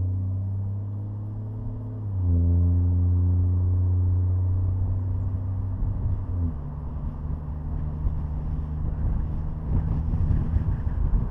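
Ford Fusion Sport's 3.5-litre V6 with both rear mufflers deleted, under normal driving: a strong, steady exhaust drone that gets louder and shifts in pitch about two seconds in. From about six and a half seconds it turns into a rougher, lower rumble.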